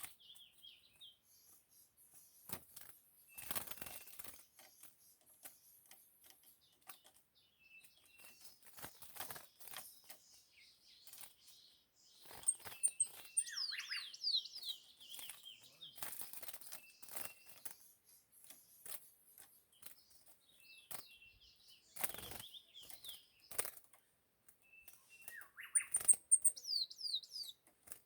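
Small songbirds chirping in short phrases, with scattered clicks, rustles and bursts of wing fluttering.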